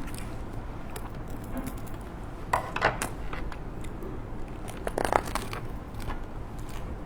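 Crackling, tearing handling sounds of food being pulled apart by hand, in two short clusters about two and a half and five seconds in, with small clicks between.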